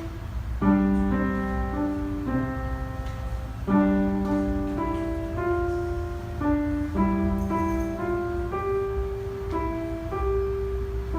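Instrumental keyboard music: a piano-like melody and held chords, over a steady low hum.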